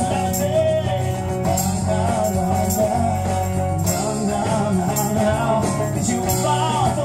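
Live band playing a song: bass guitar, drums and cymbal struck close by, with a voice singing over it.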